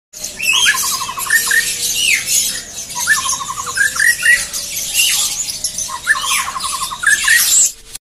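Caged songbirds: one bird sings a loud phrase three times, about every three seconds. Each phrase is a falling whistle, then a quick run of about eight low even notes, then a couple of short rising notes. Under it runs constant high chirping from many other birds.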